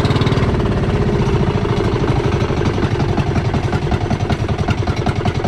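Small fishing boat's engine running steadily with a fast, even chugging.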